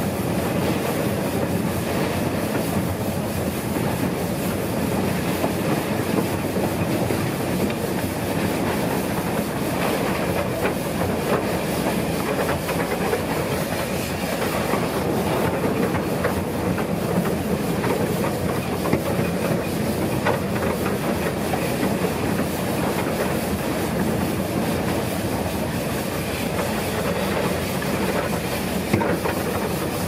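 Small forest-railway tourist train running, heard from aboard its open passenger car: a steady rumble of wheels on the rails with frequent small clicks.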